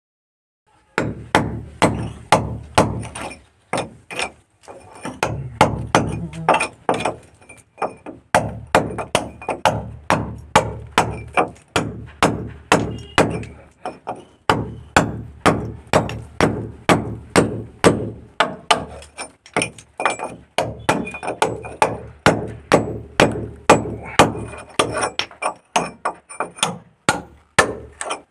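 Repeated hammer blows, roughly two a second, in runs broken by short pauses.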